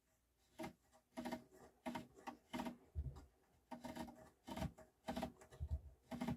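Sprung metal top plate of a Thorens TD125 Mk II turntable pressed down and released by hand, bouncing on its suspension springs: about a dozen uneven clunks, each with a short metallic ring, some with a low thud. The plinth is being tested for whether it floats freely on its newly loosened springs.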